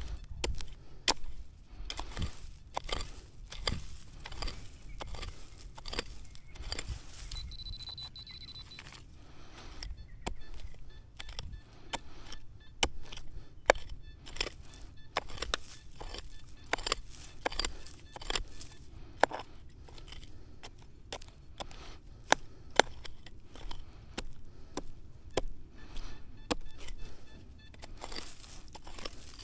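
Irregular clicks, knocks and scrapes with a faint hiss beneath, and one brief steady high beep about seven seconds in.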